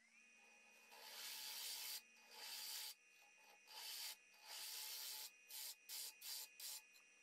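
Grizzly 3 hp lathe running with a steady motor whine that rises briefly as it comes up to speed, while sandpaper is pressed against the spinning box elder bowl in a series of hissing strokes. The first strokes are long; from about five seconds in they turn short and quick.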